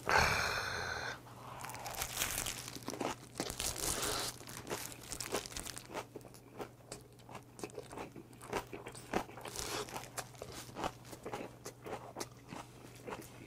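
Close-up eating sounds of a person biting into and chewing a wrap of salted napa cabbage: wet crunching and chewing that goes on irregularly, with a louder burst in the first second.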